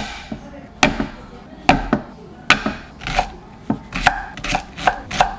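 Chef's knife chopping a red shallot on a wooden cutting board: sharp separate knocks of the blade on the board, slow at first, then quicker, three or four a second, in the second half.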